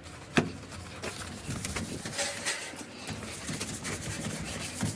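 A sharp click, then irregular rubbing and scraping handling noises.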